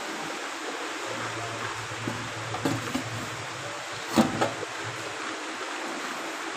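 Steady hiss of background noise with a few short knocks; the loudest, about four seconds in, is a hand knocking against a box on a shelf.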